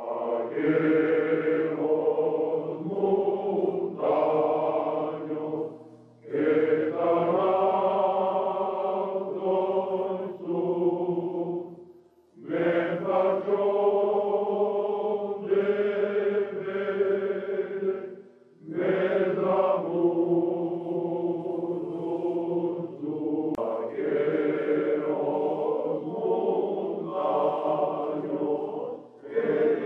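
A choir singing a traditional song, in long phrases of about six seconds with brief breaks between them.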